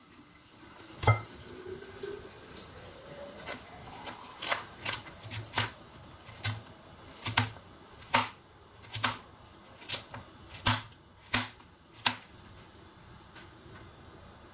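A chef's knife cutting through watermelon and rind and knocking down onto a plastic cutting board, a dozen or so sharp knocks each with a dull thud, spaced about half a second to a second apart.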